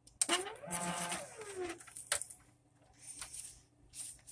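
Automatic paper towel dispenser's motor whirring for about a second and a half as it feeds out a sheet, its pitch rising and then falling, a test run on fresh batteries after a new roll is loaded. A few sharp plastic clicks follow.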